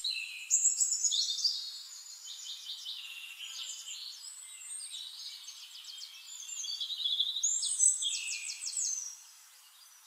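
European robin singing: high, varied warbling phrases with a fast trill near the end.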